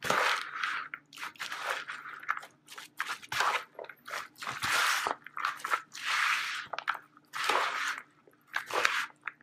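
Coleslaw being stirred in a mixing bowl: shredded cabbage and carrots dressed with mayonnaise and sour cream, worked with a spoon in repeated wet, crunchy strokes, about one to two a second.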